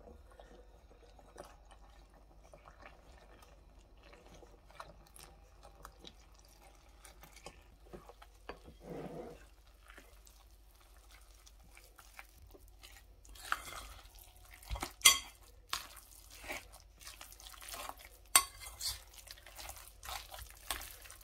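Flour and water being mixed and kneaded into a wet dough in a glass bowl, with a metal spoon clicking against the glass and wet squelching of the dough. Faint at first, it grows busier and louder about two-thirds of the way in, with several sharp clinks.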